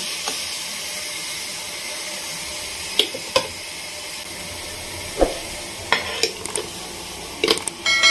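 Metal idli-steamer plates loaded with pressed idiyappam being set into the steamer, with several light clinks and knocks over a steady hiss from the heated water in the pot. Right at the end a metal piece strikes and rings.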